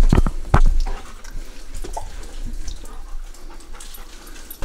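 A dog making a few short, sharp sounds in the first second, then quieter, scattered sounds over a steady background hiss.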